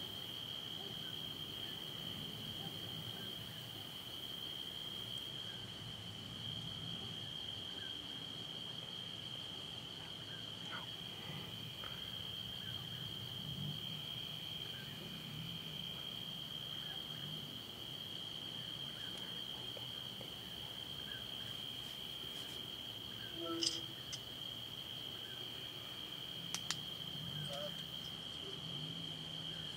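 Crickets trilling steadily in a continuous high-pitched chorus at night. A brief sharp knock sounds a little over two-thirds of the way through, followed by two quick clicks a few seconds later.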